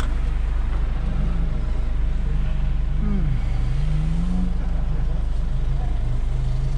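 A Troller T4's MWM diesel engine running steadily, a constant low rumble heard from inside the cab.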